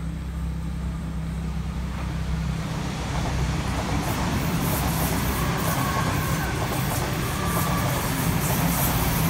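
Sydney Trains Waratah (A set) double-deck electric train passing close by, its rolling noise growing louder from about three seconds in, with faint clicks from the wheels and a faint whine in the middle.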